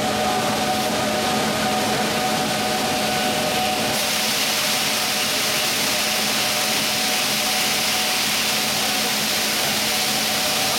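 Corrugated cardboard production line machinery running steadily, a continuous din with several steady hums; from about four seconds in a stronger hiss joins.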